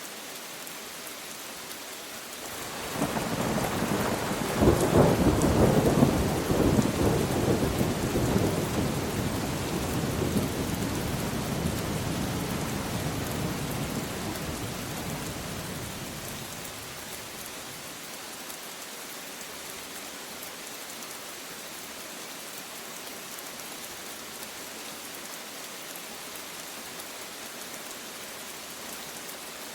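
Steady rain falling, with a roll of thunder that rises about three seconds in, peaks with crackling rumbles a few seconds later and slowly dies away over the next ten seconds, leaving the rain alone.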